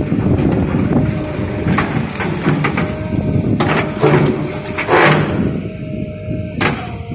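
Backhoe loader engine running, with a faint steady whine and a series of sharp metallic clanks and knocks from the working arm and bucket; the level eases off near the end.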